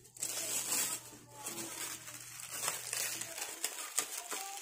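Plastic cling wrap crinkling and crackling as it is stretched and pressed over oval aluminium llanera molds filled with raw ground meat. A low steady hum underneath stops about three seconds in.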